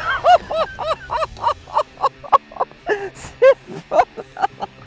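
Men laughing and whooping in glee over a perch just netted: a rapid run of short rising-and-falling cries, about four a second.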